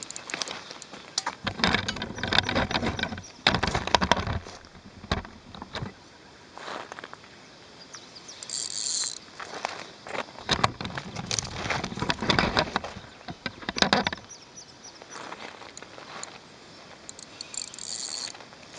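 Irregular rustling and crunching handling noises in bouts, with a short high chirp about eight seconds in and another near the end.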